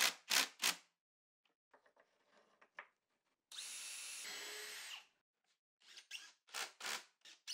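A Ryobi cordless drill working into the melamine side walls of a mold. It makes a few short trigger bursts at first, then a steady run of about a second and a half whose high whine drops in pitch partway through as it takes load, then more short bursts near the end.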